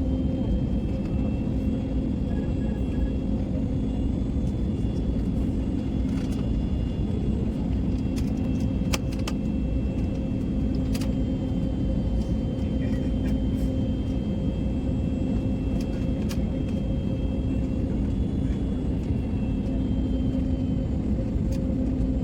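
Steady drone of an airliner cabin in flight, the engines and rushing air making an even low rumble with a constant hum. A few faint clicks sound about nine and eleven seconds in.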